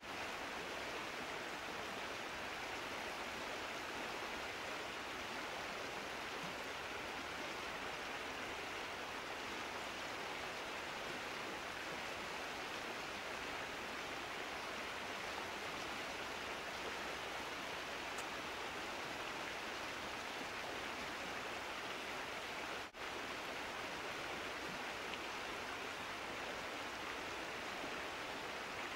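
Steady, even background hiss with no distinct events, dropping out for a split second about 23 seconds in.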